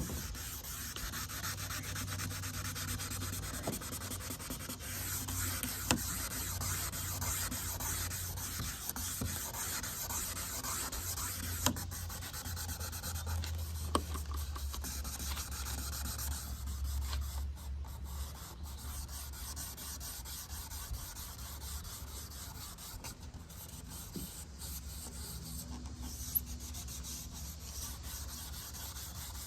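Abrasive pad wet-sanding an oxidised, hazy plastic headlight lens: a continuous, noisy scrubbing rasp as the oxidation comes off the lens.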